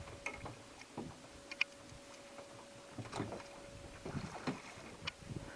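Rowing a small flat-bottomed boat: the oars knock and click in their oarlocks with each stroke, a scattering of short knocks over light water noise.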